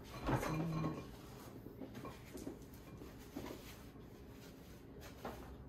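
Faint scraping and light clicks of a spoon stirring slime in a glass bowl, with a short murmured voice near the start.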